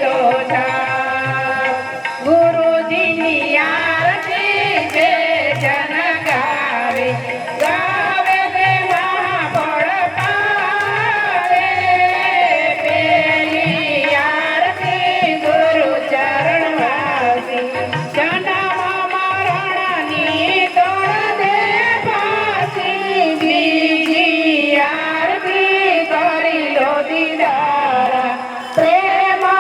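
Indian devotional bhajan music: a sustained melody moving in steps over a regular tabla-style hand-drum beat, with steady small-cymbal ticks.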